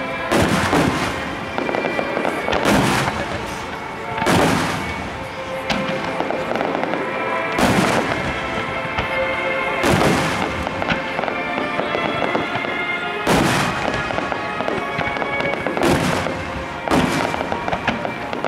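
Large fireworks shells bursting in repeated booms every one to three seconds, each trailing off in an echo, over steady music. Heard through a camcorder's built-in microphone.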